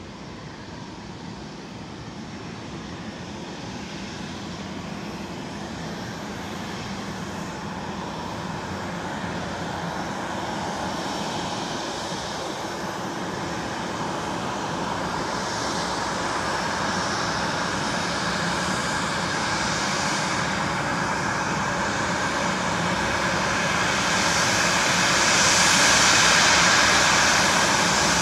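Boeing 737's CFM56 jet engines running at taxi power as the airliner taxis in, growing steadily louder as it comes closer, with a high whine loudest near the end.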